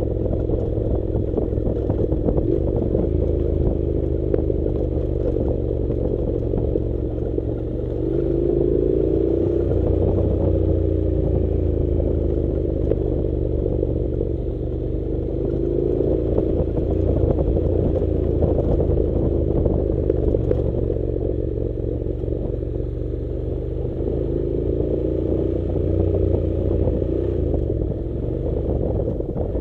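Honda NC700 parallel-twin motorcycle engine running at low revs on a loose gravel dirt road, its pitch rising and falling several times with the throttle, over a constant low rumble and clatter from the bike.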